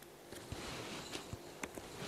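Faint scattered clicks and taps from a stylus writing and selecting tools on a pen tablet.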